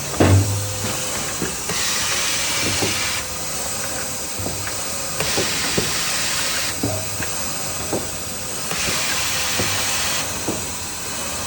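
Automatic maxi roll paper band saw cutting machine running through its cycle: a loud hiss that swells and eases every second or two, with a short knock and a brief low hum every two to three seconds as the machine repeats its cutting stroke.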